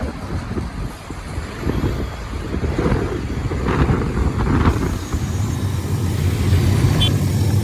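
Truck on the move: steady engine and road noise.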